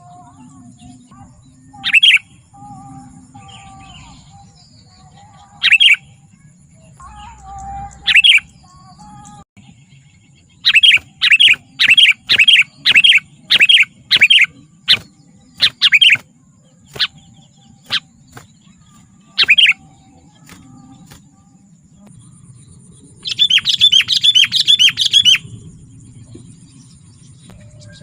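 Sooty-headed bulbul calling in loud, sharp notes. It gives a few single calls, then a run of about two notes a second, then a fast chattering burst near the end.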